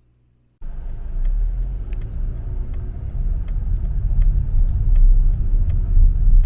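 Low rumble of road and engine noise from a moving car, heard from inside the car, cutting in suddenly about half a second in, with faint ticks about twice a second.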